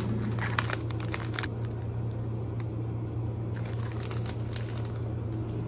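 Light crinkling and small handling clicks in two short spells, over a steady low hum.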